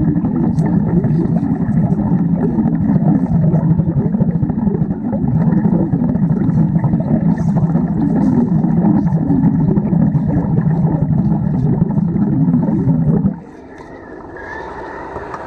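Underwater welding arc and its gas bubbles heard through water: a loud, steady, rippling rumble that stops abruptly about 13 seconds in, leaving a quieter hiss.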